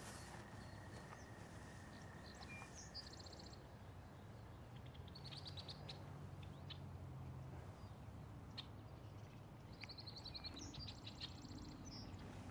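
Faint outdoor background with birds chirping: short, quick high trills about two to three seconds in, around five seconds in, and again near the end.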